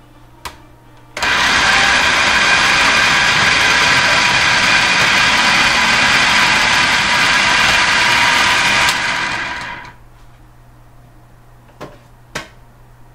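Small food processor running, grinding dry yellow split peas toward a fine powder. The loud, steady grinding starts about a second in and winds down over about a second before stopping, with a click just before it starts and a few clicks after it stops.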